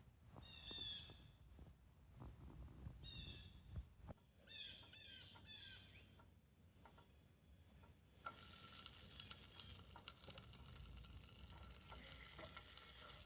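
Faint bird calls: three short runs of quick, high chirping notes, then an even hiss that starts suddenly about eight seconds in.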